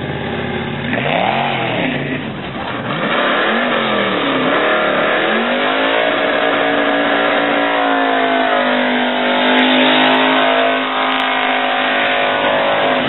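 V8 muscle car doing a burnout: the engine is blipped a few times, then held at high revs for about seven seconds with the rear tyres spinning against the pavement, and it drops off near the end.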